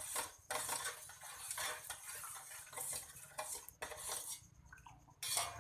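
A utensil clinking and scraping against the side of a container as a liquid mix of chocolate milk, water, cornstarch and coconut milk is stirred. The strokes come in an uneven run, with a louder clink near the end.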